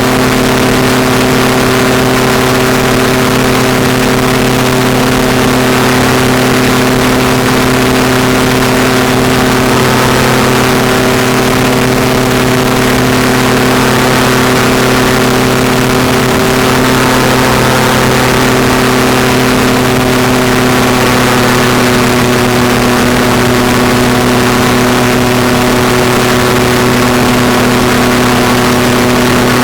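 Ultralight aircraft engine and propeller running at a steady, unchanging pitch, a loud continuous drone over a steady hiss.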